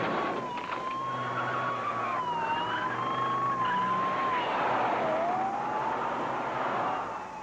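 Police car siren wailing, its pitch wavering up and down, with a car engine running underneath.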